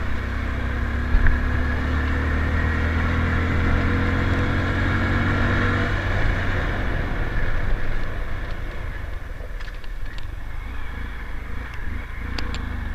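Motorcycle engine running while riding, over a steady low rumble. Its note sinks a little in pitch and fades out about six seconds in, leaving the rumble and a few sharp clicks near the end.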